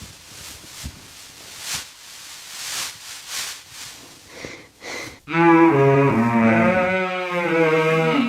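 Soft hissing noise that swells and fades, then about five seconds in a cow or calf gives a long, wavering moo lasting about three seconds.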